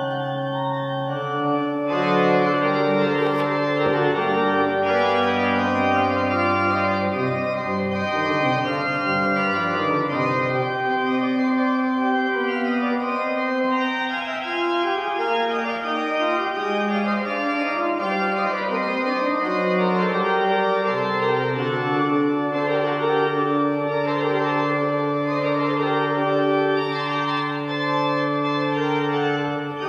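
Hill pipe organ playing slow, sustained chords over a held low pedal bass. The bass drops out for about ten seconds midway and comes back in the second half.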